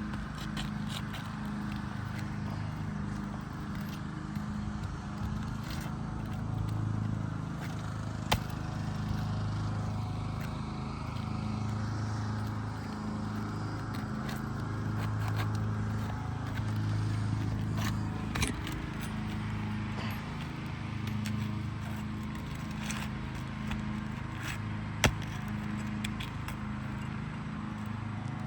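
Steady low machine hum that swells and fades slowly, with scattered small clicks and two sharp clicks.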